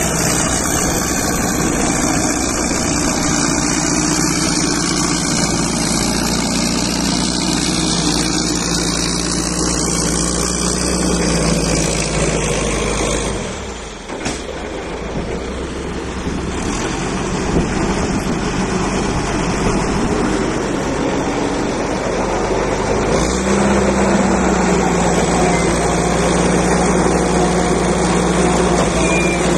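Caterpillar 518 log skidder's diesel engine running steadily. Its sound dips briefly about halfway through, then the engine revs higher about two-thirds of the way in and holds there.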